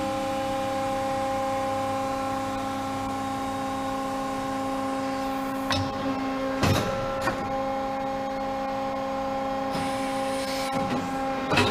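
Hydraulic power unit of a CNC tube bender running with a steady hum and whine while the machine moves its bend arm. A few metallic clunks come about six and seven seconds in, and again near the end.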